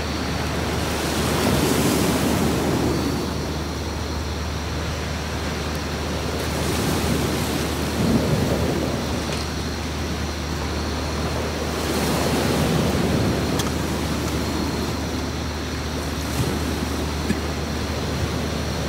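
Sea waves breaking and washing up a beach, the surf swelling about every five or six seconds, over a steady low rumble.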